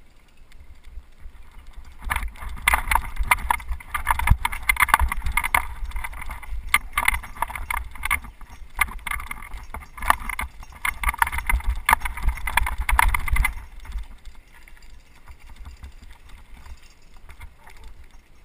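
Mountain bike jolting down a rough, rocky dirt trail: a dense clatter of knocks and rattles from the bike over tyre rumble, starting about two seconds in. About three-quarters of the way through it drops off sharply to quieter rolling on smoother ground.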